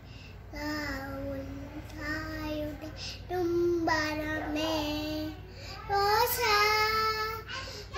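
A young girl singing solo and unaccompanied: four sung phrases of held, sustained notes with short breaths between them, the last phrase louder and higher.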